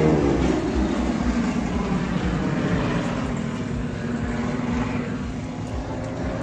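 Engine noise of an aircraft flying past, its note falling in pitch as it goes by.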